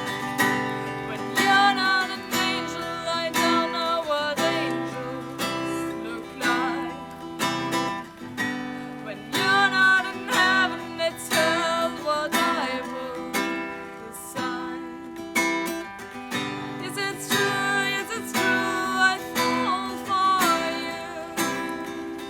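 Acoustic guitar strummed in a steady rhythm, with a solo voice singing a melody over it.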